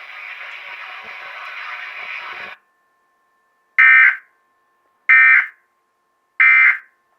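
Emergency Alert System end-of-message code: three short, loud, buzzy data bursts about 1.3 s apart, marking the end of the test message. Before them, a couple of seconds of steady hiss cut off suddenly.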